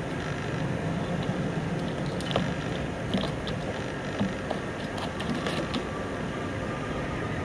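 Southern yellow-billed hornbill tapping its bill against a car's wing mirror and window glass, pecking at its own reflection: irregular sharp taps and clicks, about one a second, over steady background noise.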